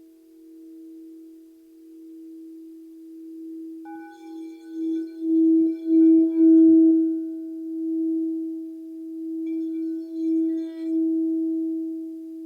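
Crystal Tones alchemy crystal singing bowls ringing in sustained, overlapping tones. A steady low tone pulses gently throughout while a higher one fades away. About four seconds in another, higher bowl joins, and the sound swells loudest around six to seven seconds before settling back.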